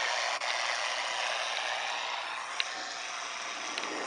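Steady hiss of 75-meter band noise from a Flex 6400M receiver, playing through a laptop's speaker, with a few faint clicks.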